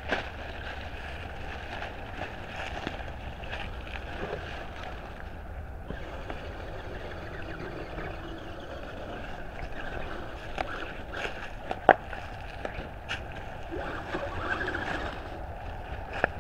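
Electric RC crawler truck (Axial SCX10 Honcho) crawling over dry leaf litter: a faint motor and gear whine with leaves crackling and twigs snapping under the tyres, over a low wind rumble on the microphone. One sharp click stands out about twelve seconds in.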